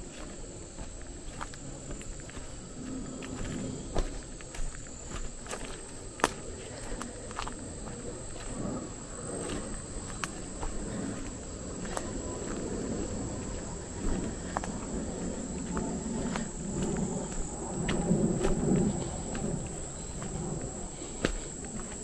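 Insects trilling steadily at a high pitch, under footsteps crunching over leaf litter and brush with occasional sharp snaps; the footsteps are loudest about three-quarters of the way through.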